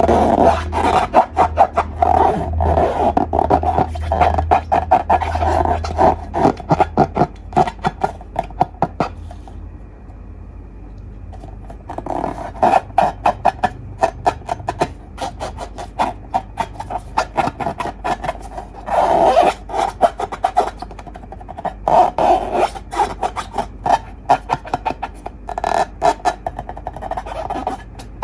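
Slime being squeezed and kneaded by hand, giving dense runs of wet clicking and popping, with a short pause about a third of the way in.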